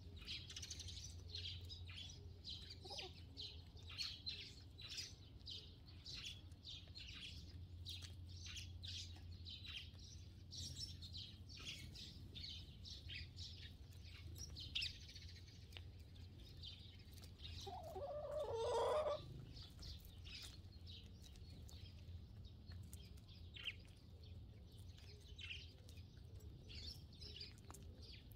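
Sparrows chirping busily throughout, many short chirps, with a chicken's single loud cluck about two-thirds of the way in, over a low steady hum.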